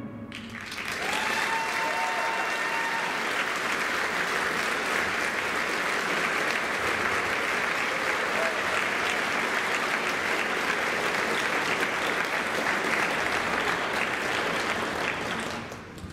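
Concert-hall audience applauding as the band's final chord dies away. The clapping builds about a second in and stays steady, with a held high call from the audience soon after it starts, then fades just before the end.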